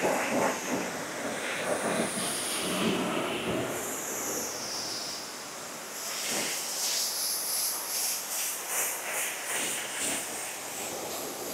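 Self-serve car wash pressure wand spraying water onto a car: a continuous hiss that turns brighter about halfway through.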